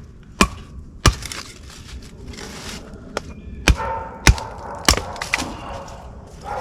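Dry cedar being chopped for kindling: about six sharp blade strikes into the wood, unevenly spaced.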